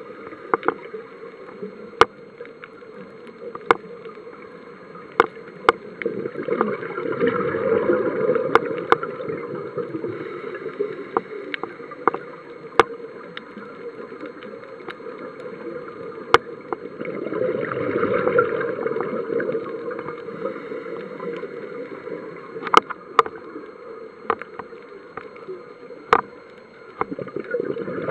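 Underwater sound of a scuba diver's regulator breathing, picked up through the camera housing: a bubbling, hissing rush of exhaled bubbles that swells for a few seconds about every ten seconds, with quieter stretches between. Scattered sharp clicks sound throughout.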